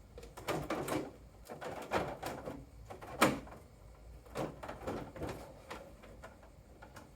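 Plastic cover of a dehumidifier being lifted off and set down: a run of irregular plastic knocks and scrapes, the loudest a sharp knock about three seconds in.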